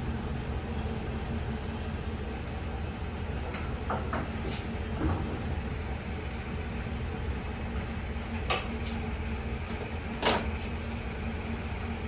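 A handful of sharp clicks and knocks from snowplow wiring connectors and mount hardware being handled, the loudest about ten seconds in, over a steady low hum.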